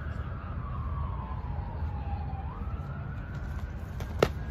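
Distant emergency siren wailing: one tone falls slowly for about two and a half seconds, then swings quickly back up, over a steady low rumble. Near the end comes one sharp smack, a padded foam weapon striking.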